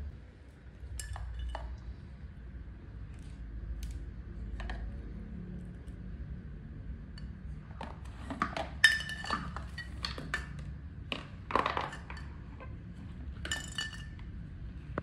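Small hard objects clinking and knocking together in scattered light clinks, each with a short ring. They are sparse at first and come in quick clusters in the second half, the loudest about halfway through.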